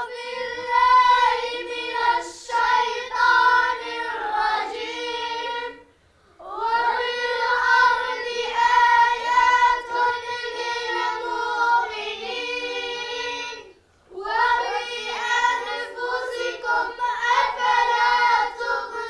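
A group of children's voices chanting in unison, held on a steady pitch, in three long phrases separated by two brief pauses.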